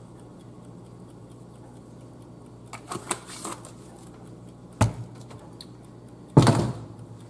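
Handling noise from a plastic seasoning jar being closed and put down: a few light clicks about three seconds in, a sharp knock near five seconds, and a louder clunk about six and a half seconds in, over a low steady hum.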